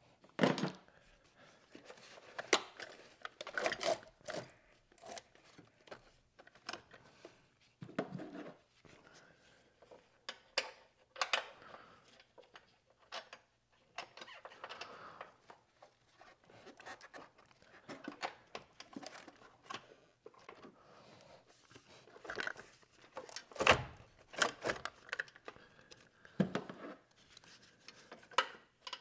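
Scattered clicks, clinks and knocks of small hard objects being handled, irregular and uneven in loudness, with the loudest knock about three quarters of the way through.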